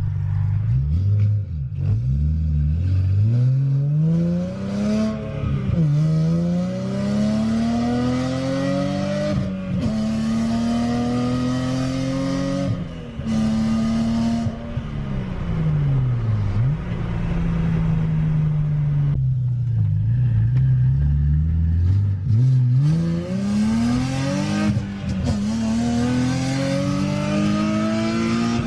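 3.5-litre V6 of a manual Infiniti G35 / Nissan 350Z accelerating through the gears. The engine note climbs, then drops sharply at each upshift, several times over.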